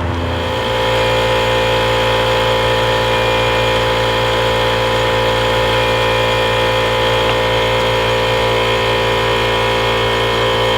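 Small gasoline engine running steadily at an even speed, a slight change in its low note about half a second in.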